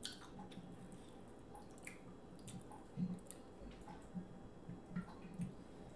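Faint wet squelching and scattered small clicks of sauce-covered fingers picking through boiled seafood in a glass bowl, with soft chewing and a few louder smacks about three and five seconds in.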